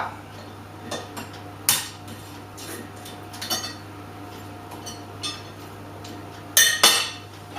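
Scattered light clinks and knocks of kitchenware around an egg in an egg cup, with two sharper knocks close together near the end, over a faint steady hum.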